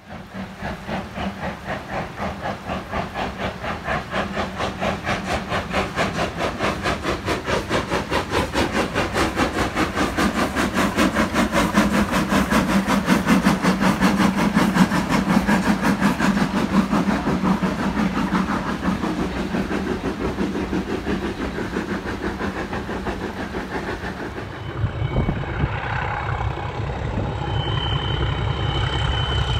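Steam locomotive working past under load, its exhaust beats coming in a fast, even rhythm that grows louder and then eases off. About 25 seconds in it gives way to the low, steady running of a diesel locomotive's engine, with a thin steady high tone near the end.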